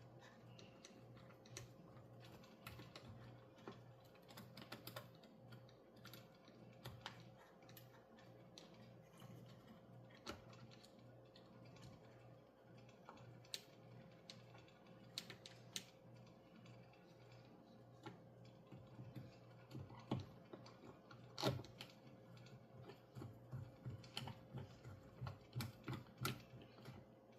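Faint, scattered clicks and taps of small hard RC-car parts and tools being handled, over a steady low electrical hum. The clicks come faster near the end.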